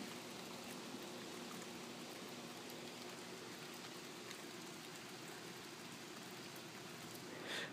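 Steady, faint rainfall, with scattered small ticks of drops.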